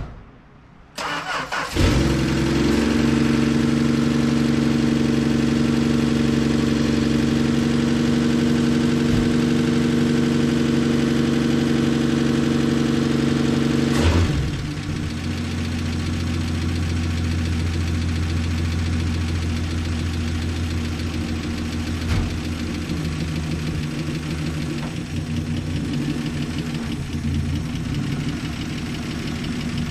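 1962 Plymouth Valiant's slant-six engine, freshly tuned up with new plugs, wires, cap, rotor and fuel pump, cranks briefly about a second in and catches. It runs steadily and fairly loud until about halfway through, when the note drops and it settles into a quieter, lower idle as the car creeps out of the garage.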